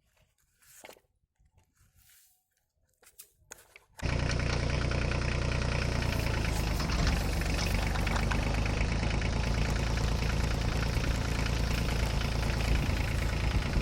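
Near silence with a few faint clicks, then about four seconds in an engine sound cuts in abruptly and runs steadily.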